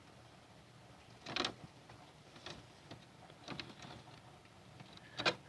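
Rain heard from indoors: a faint steady hiss with a few sharp, irregularly spaced ticks.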